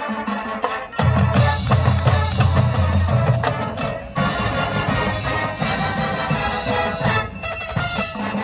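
Marching band playing, winds with drums and front-ensemble percussion. The full band comes in loud and heavy about a second in, with a brief break just after four seconds before the music resumes.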